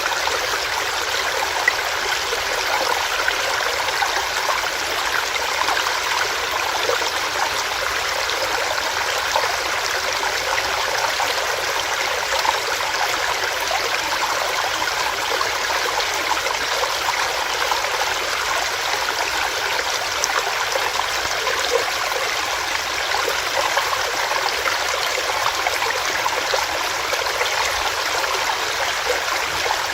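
Small stream running over rocks: a steady, even rush of water with fine trickling and splashing.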